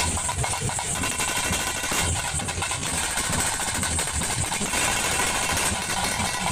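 Several large barrel drums (dhol-type) beaten with sticks in a fast, dense, unbroken rhythm, the folk drumming that drives a fire-torch dance.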